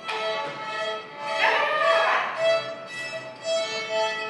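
Violin playing a run of held, bowed notes one after another, with a louder burst of rough noise from about a second and a half to two seconds in.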